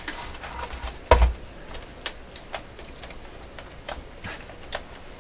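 Scattered clicks and knocks from a portable transistor radio being handled on a workbench, with one louder knock about a second in.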